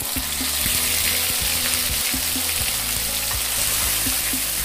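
Wet blended paste of shallots, garlic and fresh turmeric sizzling steadily in hot oil in a wok, stirred with a wooden spatula.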